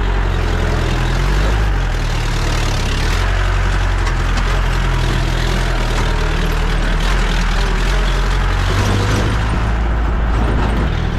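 Jeep driving on a rough off-road track: a steady engine drone with a constant wash of tyre, rattle and road noise.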